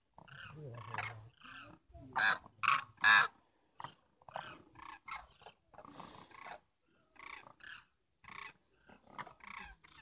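Cranes calling: a string of short, rolling calls, the loudest bunched about two to three seconds in and softer ones spaced through the rest.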